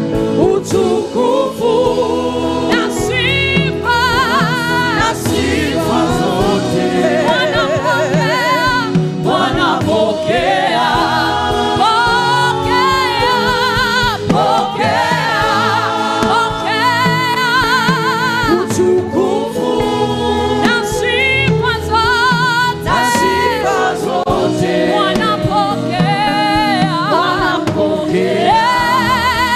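Gospel worship music: several voices singing a worship song together, with wavering held notes, over steady musical backing.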